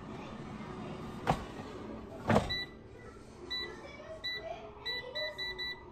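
Two sharp knocks in the first half, then the Power XL air fryer's touch control panel beeping about seven times as its buttons are pressed to set the cooking time, the beeps coming quicker near the end.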